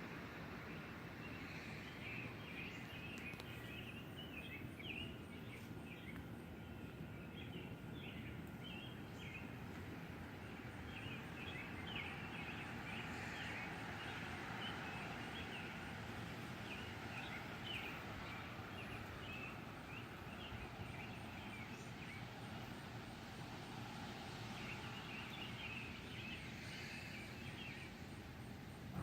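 Birds chirping in many short, irregular calls over a steady low background hiss of outdoor noise.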